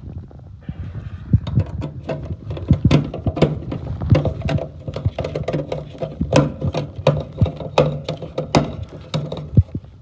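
Screwdriver tightening the screws of an Intertherm furnace's burner orifice bracket: irregular metallic clicks, taps and scrapes against the sheet metal, over a low hum.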